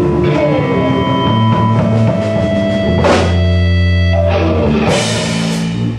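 Live blues-rock band (electric guitar, bass and drum kit) playing the closing held chords of a song, with cymbal crashes about three seconds in and again near the end, the sound dying away at the end.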